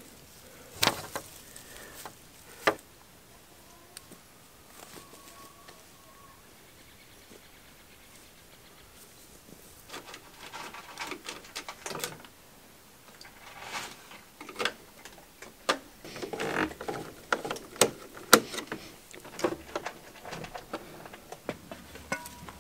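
Scattered sharp clicks, knocks and rustling from hands-on work with tools and parts, sparse at first and coming thick and fast in the second half.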